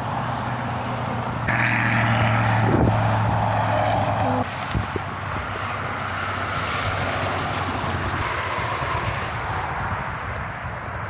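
A steady engine drone with a low pitched hum, which grows louder and higher from about one and a half seconds in and drops back suddenly about four seconds in.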